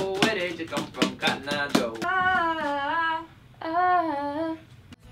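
A woman's voice singing two phrases of held notes that bend up and down in pitch. The phrases are preceded by a quick run of sharp clicks, about four or five a second, over the first two seconds.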